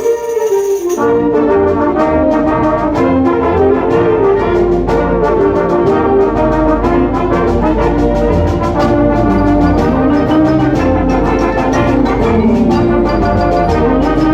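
A band playing, led by brass such as trombones and trumpets, with the full ensemble coming in about a second in over a low accompaniment.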